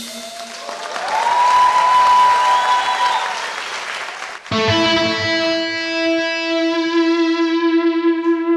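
Live instrumental music led by an effects-laden electric guitar: a washy, swirling passage with one note bending up and held, then about four and a half seconds in a new long note rings out, sustained and wavering in loudness.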